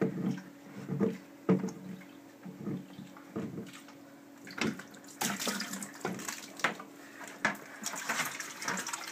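Short plastic knocks and creaks as a reverse osmosis unit's clear filter housing is worked loose by hand. From about halfway, water splashes and pours out of the housing into a plastic bucket.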